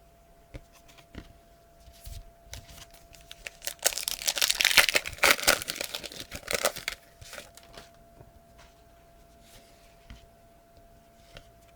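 A trading-card pack's wrapper being torn open and crinkled: a dense crackle for about three seconds in the middle, with light rustles and taps before and after.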